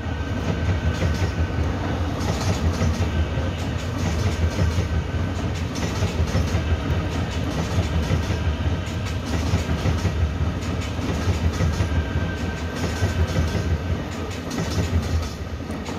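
Electric multiple-unit commuter train running past on the tracks: a steady low rumble with repeated wheel clicks over rail joints and points. A faint high whine comes in near the start and again near the end.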